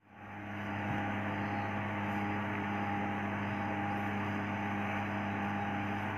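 Electric tattoo machine buzzing steadily at an even pitch, with a low drone and overtones.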